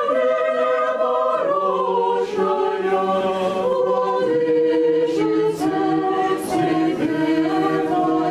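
Church choir singing a cappella in Orthodox chant style, several voices in harmony holding slow chords that change every second or two.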